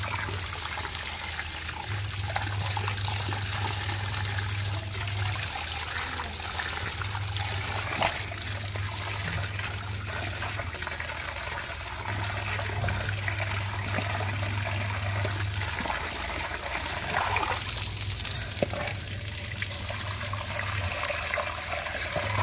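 Running water splashing steadily into a clay bowl as raw fish pieces are rinsed in it by hand.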